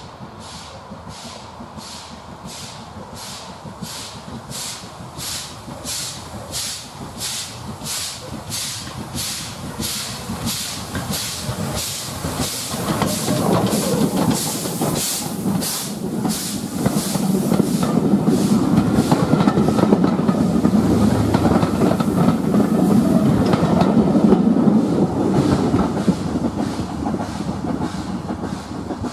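LMS Black Five 4-6-0 steam locomotive working a passenger train past at close range. Its exhaust chuffs in a steady, slightly quickening beat with steam hiss, joined by the rumble of the wheels and coaches, growing louder as it passes.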